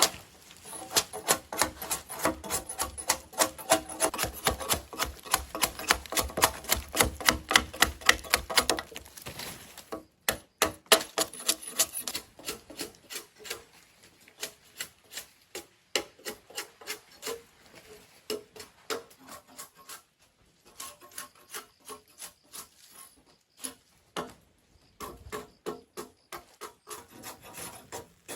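Repeated rasping strokes on wood, like a blade scraping or shaving it. They come quickly and evenly, about four a second, for the first nine seconds or so, then slower and more irregular with short pauses.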